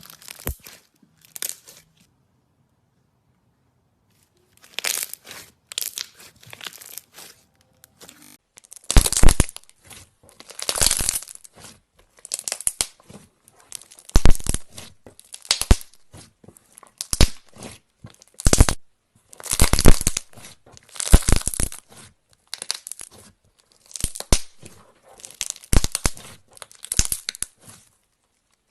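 Slime being squeezed, stretched and pressed by hand, crackling and popping in irregular bursts. Nearly quiet for the first few seconds, then louder sharp pops and squelches come every second or so from about nine seconds in.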